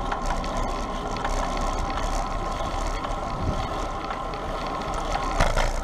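Bicycle riding noise picked up by a GoPro on the move: a steady rush of wind over the microphone with tyre and drivetrain hum, and a single short knock about five and a half seconds in.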